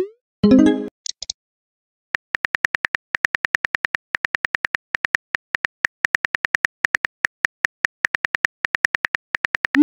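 Phone keyboard typing sound effects from a text-message app: a quick, even run of short key clicks, about six a second. It is framed by a rising send 'swoosh' at the start and another near the end. Just after the first swoosh comes a short pitched tone, then about a second of silence before the typing resumes.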